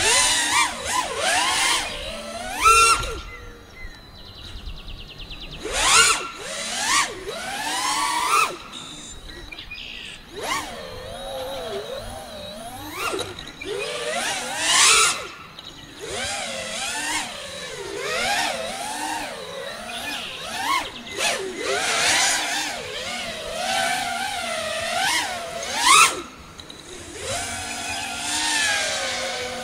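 Brushless motors (Ethix Stout v3 with HQProp Ethix P3 props) of a 6S FPV freestyle quadcopter, heard from on board: a buzzing whine that sweeps sharply up and down in pitch with throttle changes, with rushes of wind noise. Several hard throttle punches stand out as the loudest moments.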